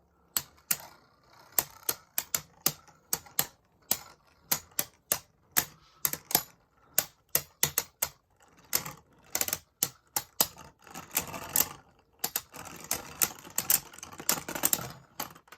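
Spinning Beyblade Burst tops clashing in a plastic stadium: sharp plastic clacks at uneven intervals, building about eleven seconds in to a rapid rattling of hits that stops just before the end.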